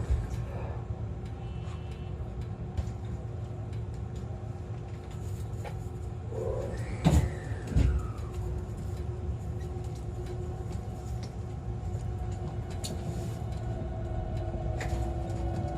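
Inside a JR West 681 series EMU car (KuMoHa 681-506), a steady low rumble with a constant hum from onboard equipment. Two knocks come about seven and eight seconds in. Near the end a whine starts to rise in pitch as the inverter-driven three-phase induction traction motors begin to pull the train.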